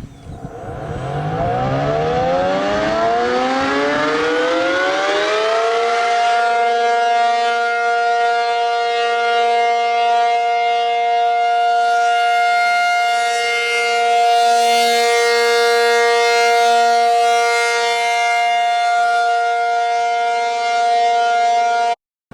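Tornado warning siren winding up, its pitch rising for about six seconds, then holding a steady chord of two tones until it cuts off suddenly near the end.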